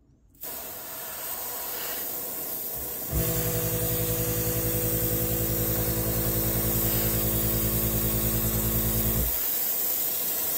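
Iwata Neo airbrush spraying opaque white paint, a steady hiss of air and paint that starts about half a second in. About three seconds in, a small air compressor starts with a steady hum, then shuts off near the end while the hiss goes on.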